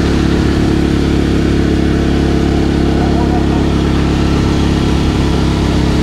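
Motorcycle engine running steadily at an even pace while riding, a constant hum.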